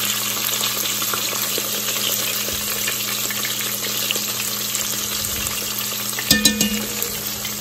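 Breaded chicken pieces frying in oil at medium heat: a steady sizzle without spattering, while a fork turns the pieces over. A short metallic clink about six and a half seconds in.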